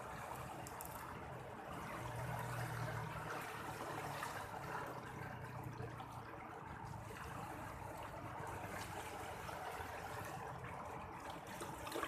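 Sea water washing and trickling in a steady, even wash.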